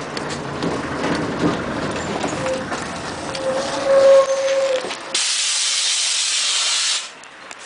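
Scania CN113CLL city bus braking to a stop with a brake squeal, then a hiss of compressed air released from its pneumatic system for about two seconds.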